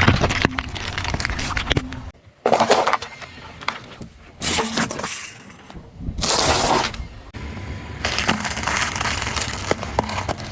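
Things crunching and cracking as a car tyre crushes them, in several short bursts that start and stop abruptly.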